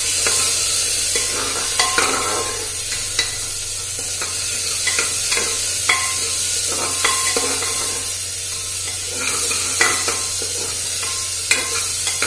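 Onions and tomatoes sizzling in hot oil in an aluminium pressure cooker while a metal spoon stirs them, scraping and knocking against the pot's side in irregular, briefly ringing clinks.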